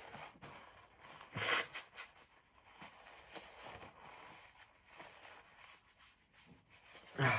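Faint rustling of a paper tissue being handled and unfolded, then a short, louder nose blow into it near the end.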